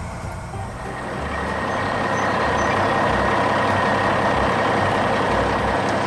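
Heavy truck sound effect: a low engine rumble under a steady rushing noise that swells about a second in and holds.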